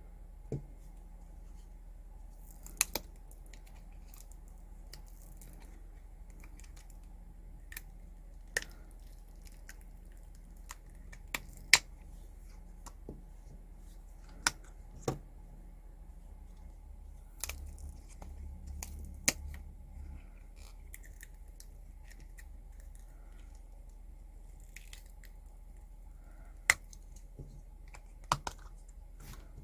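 Scattered sharp clicks and light taps from small crafting tools and materials being handled on a work surface, about a dozen at irregular intervals over a faint steady hum, with a short rustle a little past halfway.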